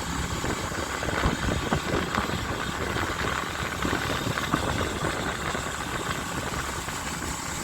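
Motorcycle engine running on the move, mixed with a steady rushing noise over the microphone.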